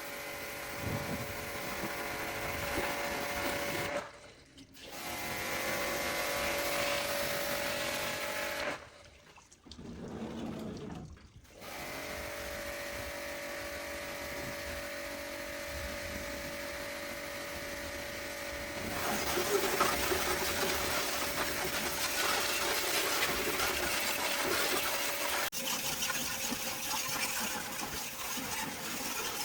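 A small electric motor running steadily with a high, even hum. It stops briefly twice, and about two-thirds of the way in turns louder and harsher, with a rough hiss over the hum.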